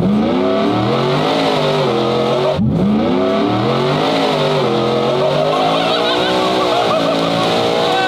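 Ford F-150's 5.0 L Coyote V8 at full throttle, heard from inside the cab: the revs climb, break sharply about two and a half seconds in as the transmission shifts up, then climb again through further gears.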